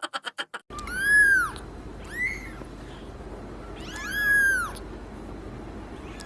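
A small kitten meowing: high, thin meows that rise and fall in pitch, a long one about a second in, a short one a second later, and another long one about four seconds in.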